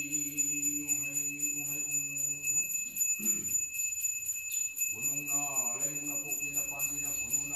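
A small hand bell rung without pause during a Meitei ritual invocation, over a voice chanting in long held notes. The chant breaks off about three seconds in and resumes about five seconds in with gliding, wavering notes.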